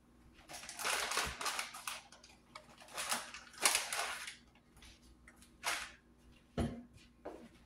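Household handling noises in a kitchen: bursts of rustling and clattering as things are moved around, then a few sharp knocks near the end, one of them a dull thump.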